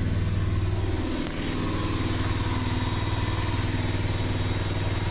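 Atlant washing machine on its 1200 rpm spin cycle, running with a steady mechanical hum while the drain pump empties the water. About a second in, the deep low hum drops away and the machine carries on at a lighter, steady pitch.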